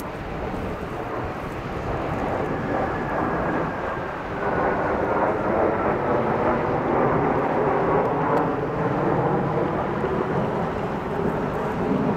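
Jet engine noise from a six-ship formation of Blue Impulse Kawasaki T-4 jets passing overhead: a steady broad rumble that grows louder about four and a half seconds in, with a faint falling whine before that.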